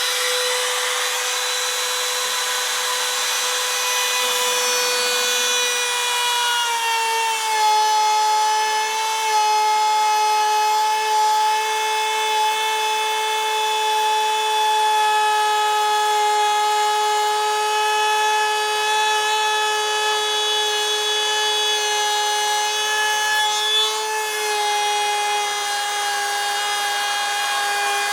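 Electric router spinning with a steady high whine while its bit cuts a half-inch-deep slot down a wooden post. The pitch drops a little about seven seconds in as the motor takes the load of the cut, then holds steady.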